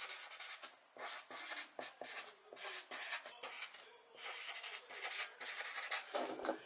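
Felt-tip Sharpie marker writing on a paper card: short scratchy strokes in quick runs, with brief pauses between words.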